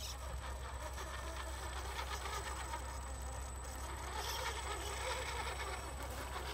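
Radio-controlled scale crawler truck's small electric motor and geared drivetrain whirring steadily as it crawls slowly along a log, with small ticks from the tyres and gears.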